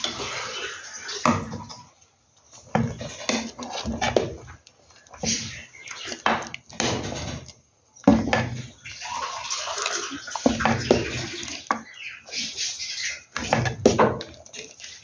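Spoon stirring thick, creamy hominy pudding in a pot, with wet sloshing and the spoon knocking and scraping against the pot in uneven strokes. The stirring pauses briefly twice.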